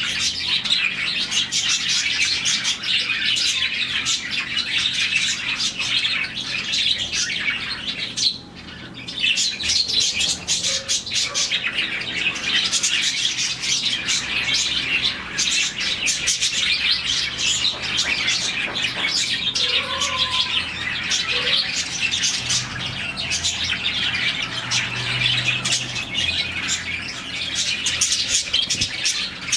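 A colony of around forty budgies chirping and chattering all at once, a dense, unbroken twitter with a brief lull about eight seconds in.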